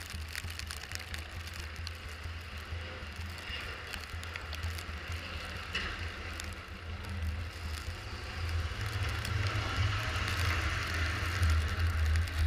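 A car driving on snowy roads: a steady low engine and road rumble with a hiss over it, louder near the end.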